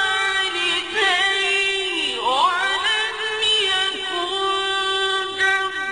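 A male Qur'an reciter chanting in the melodic mujawwad style. He holds long, drawn-out notes and ornaments them with wavering glides up and down in pitch.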